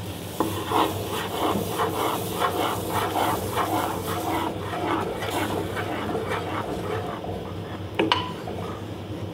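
A wooden spoon stirs quick grits in a saucepan of boiling chicken broth as the grits are poured in, scraping rhythmically at about three strokes a second over the bubbling pot. A single sharp knock comes near the end.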